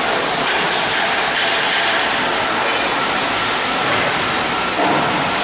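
Single-head aluminium profile cutting saw machine running, a loud steady noise with a faint high whine.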